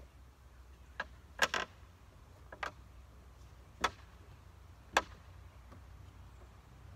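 Sharp wooden knocks and clunks, about six of them spaced irregularly, as a tall timber wall frame is tipped and walked end over end into place.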